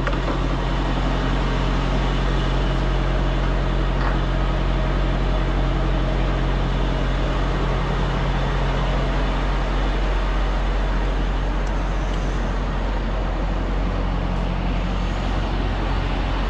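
Diesel semi-truck engine idling: a steady, even low rumble.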